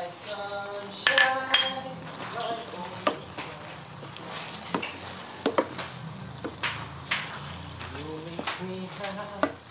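Wooden spatula stirring and scraping creamy tofu sisig in a frying pan, with repeated sharp knocks against the pan, over a steady sizzle of the dish frying.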